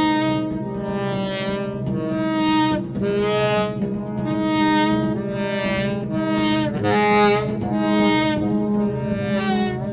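Saxophone playing a slow improvised line of long held notes, each about a second, over a steady low drone.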